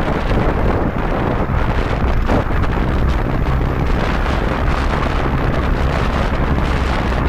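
Wind rushing over the microphone on a moving motorcycle: a loud, steady rush with a deep rumble, unbroken throughout.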